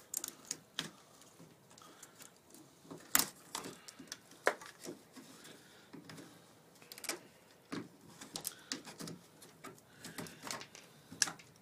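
Pliers prying bronze ring nails and crumbling rotted wood out of a canoe's stem end: irregular small clicks, snaps and scrapes, the sharpest about three seconds in and again near the end.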